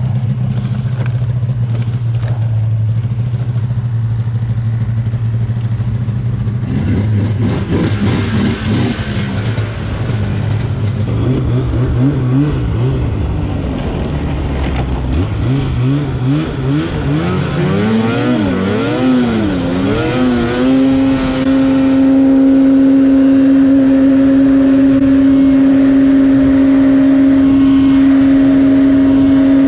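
Snowmobile engine under way: a low, steady running note for the first several seconds, then the pitch rises and falls as the throttle is worked, and from about two-thirds of the way through it holds a louder, steady high note at cruising speed.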